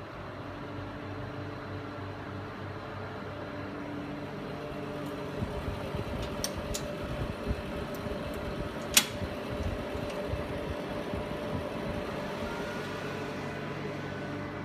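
Steady hum of a ferry's below-deck machinery and ventilation, with several held tones. A few sharp clicks cut through it, the loudest about nine seconds in.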